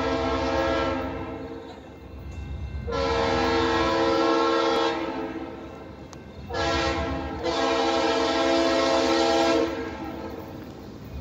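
Approaching train's horn sounding the grade-crossing signal: long, long, short, long, over a low steady rumble of the oncoming train.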